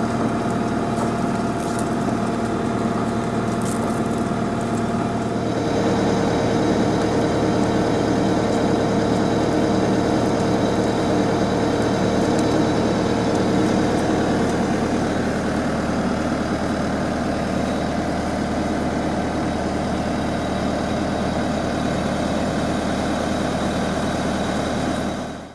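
Skid loader engine running steadily, powering the hydraulic motor of a custom net-winding attachment as it slowly winds bird netting onto a PVC tube. The engine note shifts slightly about five seconds in.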